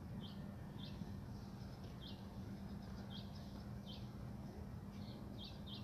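A small bird chirping repeatedly, short high chirps about two a second, over a steady low hum.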